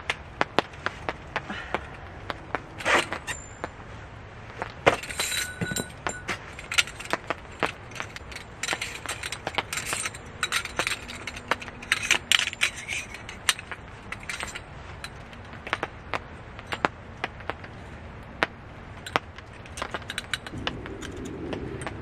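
Thin aluminium rods of a folding stand clicking and clinking against each other as they are unfolded and fitted together: an irregular run of sharp metallic clicks and light rattles, thickest about five seconds in and again around ten to thirteen seconds in.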